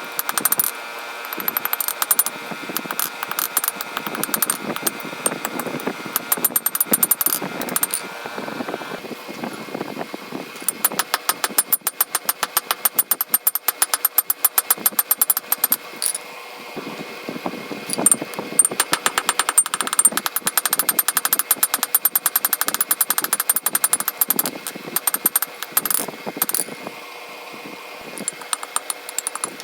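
Rapid runs of hammer blows on steel at the anvil, with a ringing metallic tone; the runs break off and start again every few seconds.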